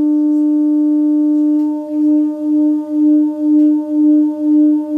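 Two loudspeakers driven by signal generators playing a loud, steady tone of about 300 Hz. After about two seconds the tone starts to swell and fade about twice a second: beats between one speaker at 300 Hz and the other at 302 Hz, a beat frequency of 2 Hz.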